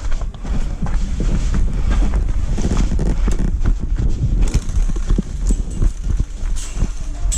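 Quick irregular footsteps of a person moving over the ground, with gear knocking and wind rumbling on the microphone.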